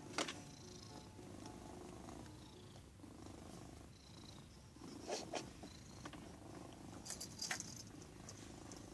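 Domestic cat purring steadily and low, close up, with a few light clicks.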